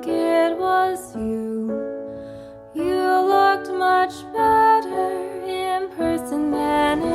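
Background music: soft, gentle instrumental with held piano-like or keyboard notes changing every half second or so, dipping briefly about two and a half seconds in.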